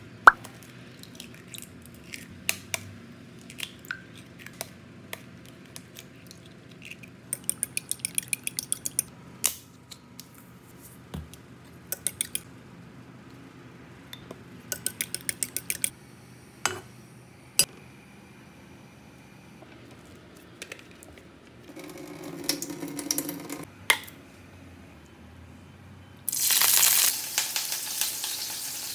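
Kitchen food-prep sounds: scattered taps and clicks of utensils against a glass bowl, then a fork whisking beaten eggs in the glass bowl in quick runs of clicks. Near the end a loud frying sizzle starts suddenly and keeps going.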